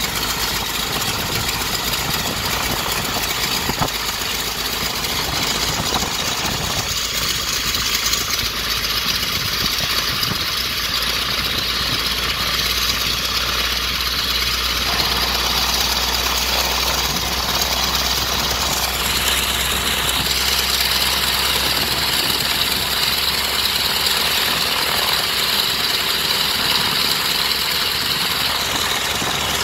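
Wright Whirlwind R-760-8 seven-cylinder radial engine of a 1929 Waco Taperwing idling steadily with its propeller turning, on its first run after a complete restoration.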